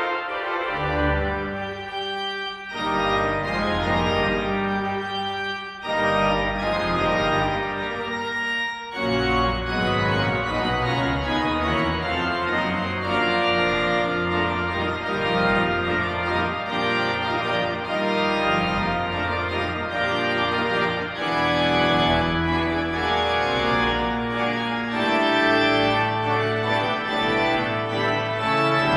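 Pipe organ playing full sustained chords over a pedal bass line. There are short breaks between phrases in the first nine seconds, then unbroken, fuller playing.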